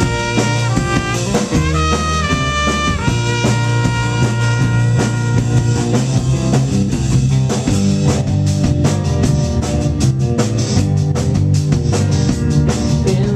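Live rock band with a trumpet playing the lead line over a drum kit and the rest of the band. The trumpet is strongest in the first few seconds and fades back by about six seconds in. After that the drums take over, busy with cymbal crashes.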